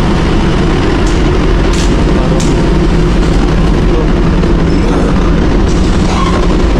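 Steady, loud low rumble of the passenger ship Nalanda's engines and machinery, heard from the open deck, with a few faint ticks about one to two and a half seconds in.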